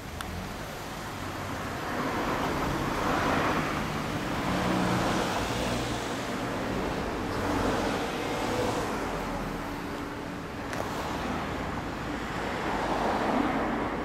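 Motorcycle engine running through a Zard Conico aftermarket silencer, its exhaust note swelling and easing several times.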